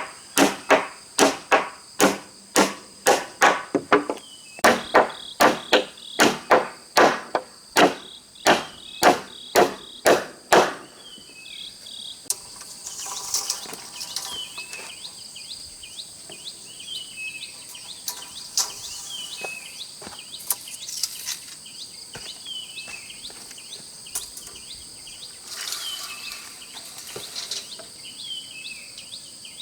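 Hammer blows, about two a second with a ringing edge, for roughly the first ten seconds, then they stop. A steady high-pitched chorus of crickets and other insects runs underneath and carries on alone, with short repeated chirps.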